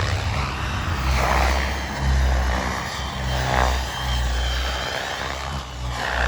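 Miniature Aircraft Whiplash T-II model helicopter with a Wren/Turbine Solutions TS45i turbine flying, its turbine whine and rotor noise sweeping up and down in pitch as it moves around, over a low rumble that swells and fades.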